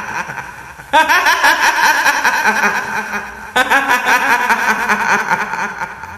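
Cackling laughter of a kuntilanak (female ghost) horror sound effect, a rapid run of laughing syllables. A new bout starts abruptly about a second in and another past three and a half seconds, each trailing off.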